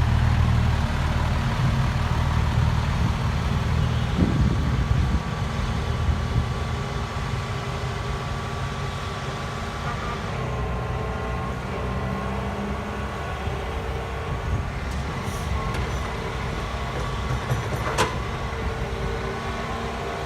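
Hitachi EX120 excavator's diesel engine running steadily under working load, easing a little after about five seconds, with one sharp metallic knock near the end.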